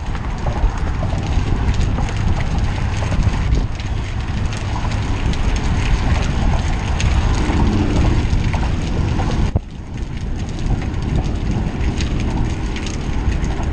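Wind rushing over the microphone of a camera riding on a moving road bike: a steady, loud rumble with scattered light ticks and crackles, dropping away briefly about nine and a half seconds in.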